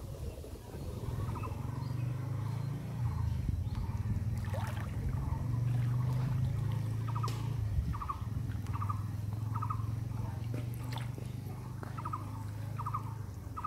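A steady low drone with short, rattling animal calls repeating about once a second from the middle onward, and a few light clicks.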